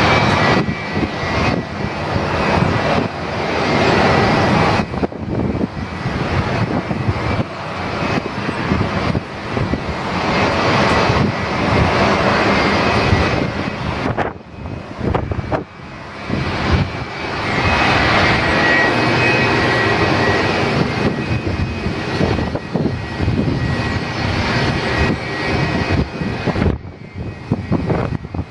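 An Airbus A319 jet airliner's engines run at taxi power as it rolls by: a steady jet rumble with a faint high whine on top.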